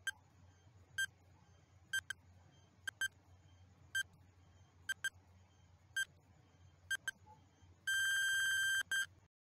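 Countdown timer sound effect beeping about once a second, with a few doubled blips. At zero it gives a longer beep of about a second and then a short one, and the sound cuts off.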